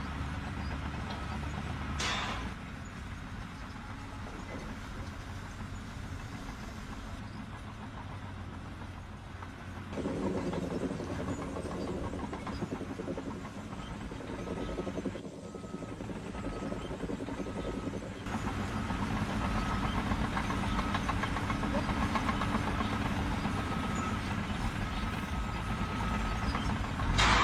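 Heavy machinery engines running, changing abruptly several times as the footage cuts between machines. A repeating high beep, like a machine's warning alarm, sounds through the second half.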